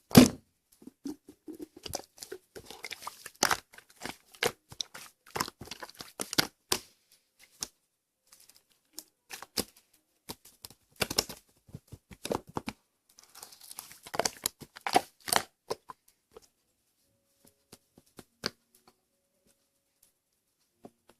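Slime being squeezed and stretched by hand, giving irregular sticky pops and crackles in clusters, with the loudest pop right at the start. The clicks thin out to a few scattered ones over the last few seconds.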